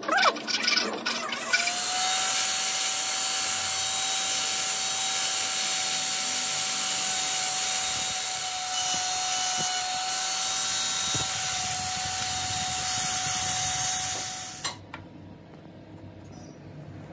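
A few hand-file strokes on metal, then an electric straight die grinder starts about 1.5 s in and runs steadily with a high whine as its burr grinds the inner teeth of a metal ring held in a vise. The grinder stops abruptly near the end.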